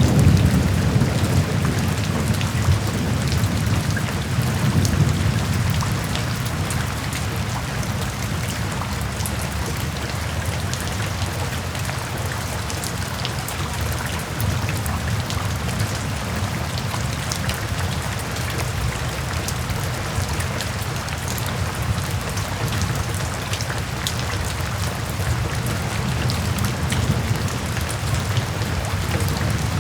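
Steady rain with many separate drop hits and a low rumble that is strongest in the first few seconds, then settles.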